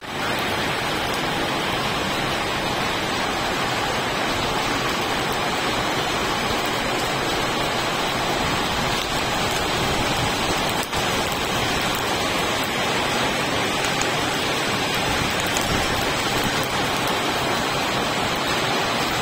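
Heavy rain pouring down steadily: a dense, even hiss of rainfall.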